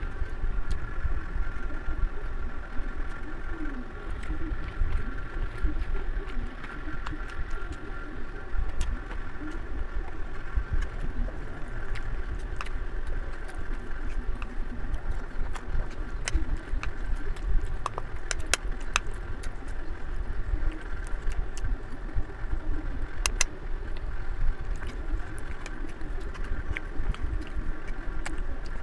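Eating at a table: a spoon clicking lightly now and then against a bowl, several times in the second half, over a steady low background rumble with a faint hum.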